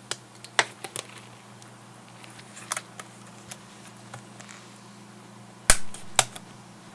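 Sharp plastic clicks and snaps as the plastic frame of a Garmin Nuvi 1490 GPS is pried off with fingernails, its small tabs coming out of their notches. The clicks are scattered, with the two loudest near the end, over a faint steady hum.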